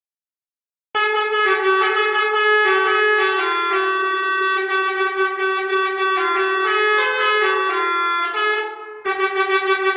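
Silence for about the first second, then a melodica (pianika) plays a sustained, reedy melody imitating the Indonesian 'telolet basuri' bus-horn tune, moving from note to note. Near the end the notes turn to quick pulses, about four a second, like a horn being tooted.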